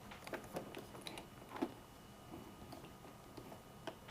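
Faint, scattered light clicks and rustles of electrical wires being handled and fed into place on a motorcycle.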